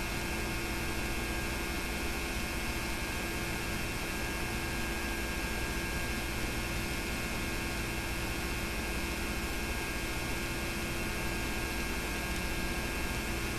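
Steady electrical hum under an even hiss, with several thin steady tones held throughout. There is no other sound.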